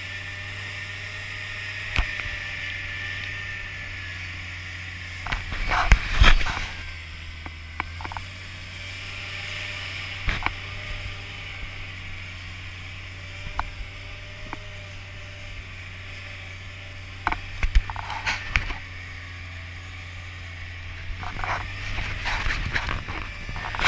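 Jeep Wrangler's engine running low and steady as it crawls along a rough dirt trail on mud-terrain tyres, with scattered knocks and clatters from the rolling Jeep, loudest in a cluster about six seconds in and again around eighteen seconds in.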